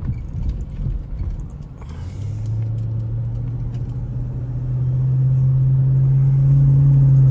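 Chrysler 300 SRT8's Hemi V8 pulling under throttle, heard inside the cabin. From about two seconds in, its drone rises slowly in pitch and grows louder, then falls away at the very end as the throttle lifts. In the first seconds the keys hanging from the ignition jangle with light clicks.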